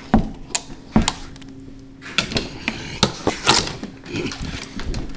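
Handling noise from a camera being carried around: irregular sharp knocks and clicks, about a dozen, over a faint steady hum.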